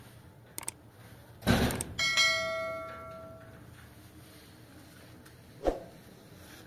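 Subscribe-button animation sound effect: two quick clicks, a short whoosh, then a bright bell ding that rings out for about a second and a half. A single dull thump follows near the end.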